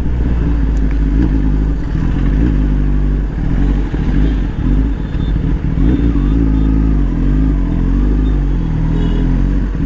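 Kawasaki ZX-10R's inline-four engine and exhaust running on the move. Its pitch rises and falls several times in the second half as the throttle is worked.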